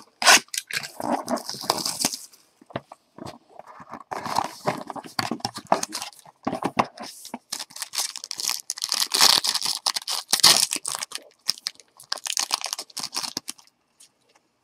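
Plastic wrap and card-box packaging crinkling, tearing and rustling as a sealed box of trading cards is opened and the cards inside are handled. It comes in irregular crackly bursts with small clicks, and stops about a second before the end.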